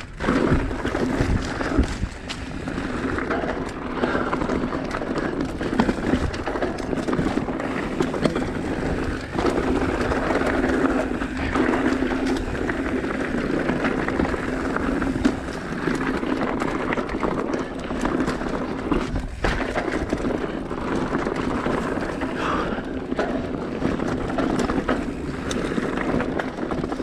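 Mountain bike riding down a loose, rocky trail: continuous clatter of tyres and frame over rocks, with many sharp knocks throughout.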